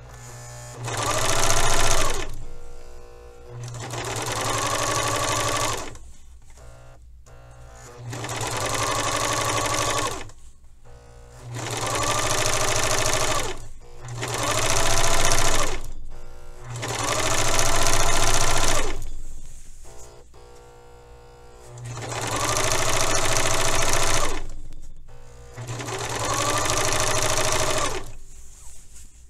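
Pfaff serger (overlocker) running in eight short bursts of about two to three seconds, with pauses between them. Each burst opens with a whine that rises as the motor speeds up. This is stop-and-go stitching, with the hem refolded and held under the presser foot between runs.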